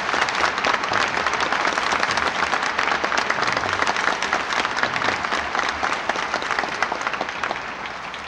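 Audience applauding: dense, steady clapping that slowly dies away near the end.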